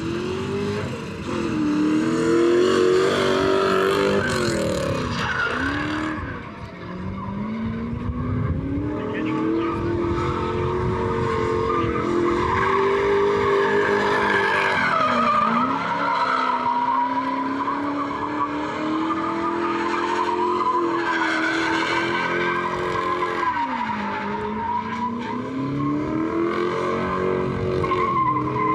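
Drift car at full throttle on track, its engine revving up and down through repeated rises and falls while the tyres squeal and skid in long slides.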